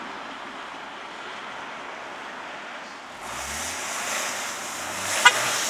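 Subaru Outback driving slowly through deep snowy ruts, its engine and tyres in the snow heard as a steady noisy rush. About three seconds in, wind buffets the microphone and the sound grows louder and hissier, and a single sharp click comes near the end.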